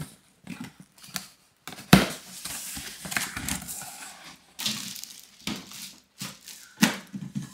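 A large cardboard box being unpacked: a knife slitting packing tape, cardboard flaps and foam inserts scraping and knocking, and plastic wrapping crinkling. The loudest is a sharp knock about two seconds in.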